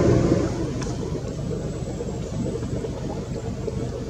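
A boat engine idling steadily, with one brief click about a second in.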